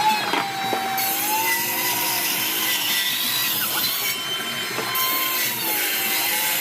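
Electric woodworking power tool cutting hardwood: a steady motor whine over the noise of the cut, its pitch sagging and recovering a few times as the load on the blade changes.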